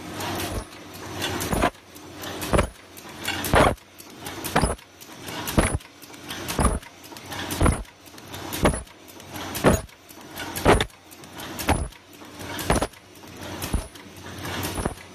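Automatic zipper bag making machine running, with a sharp clack about once a second as it cycles, over a steady mechanical hum and hiss.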